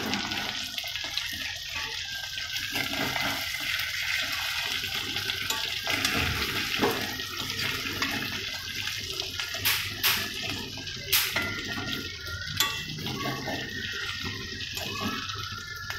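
Koi fish curry in oil sizzling and bubbling in a hot kadai with the lid off, a steady hiss, with a few sharp scrapes and knocks of a spatula loosening masala stuck to the pan.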